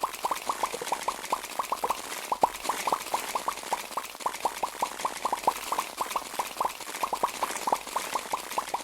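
Squishy toy being squeezed and worked, giving a rapid run of short wet pops and squelches, about five a second.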